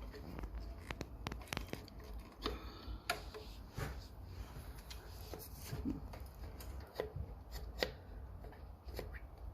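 Hands working on the back of a mitre saw, handling the dust-port parts and screws by touch: irregular small clicks, taps and rubbing, with a few sharper knocks, about 3 s in and again near 8 s.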